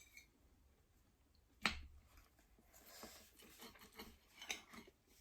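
Quiet eating sounds: one sharp click a little under two seconds in, then faint, soft chewing.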